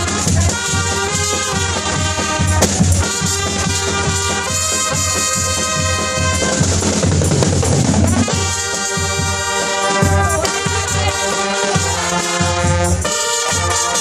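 Trumpet-led brass music playing a melody over a steady bass and drum beat, with a noisy swell of sound about halfway through.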